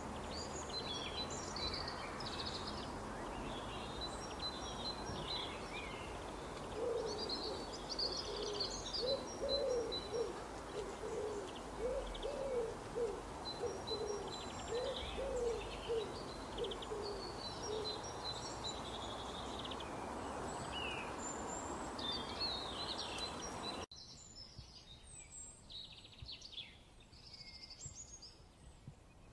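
Wild birds calling, with high chirps and twitters throughout. For about ten seconds in the middle, a run of a dozen or so low, evenly repeated notes sounds beneath them. About 24 seconds in, the background hiss drops away suddenly at a cut, and only high chirps remain.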